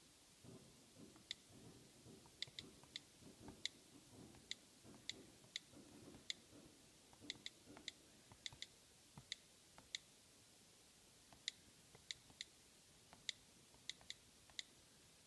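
iPad Air's on-screen keyboard clicks, faint and irregular like typing, about thirty short ticks with pauses between runs of keys. Faint low handling rustle in the first half.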